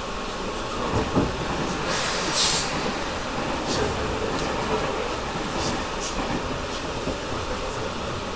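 Tobu 10000 series electric train car running, heard from inside the car with the air conditioning on. There are a couple of thumps about a second in, a short hiss about two seconds in, and a few light rail-joint clicks after that.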